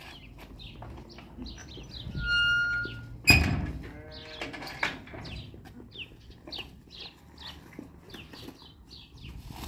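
Farmyard animal sounds: small birds chirp over and over, and a livestock animal bleats once with a wavering call about three seconds in.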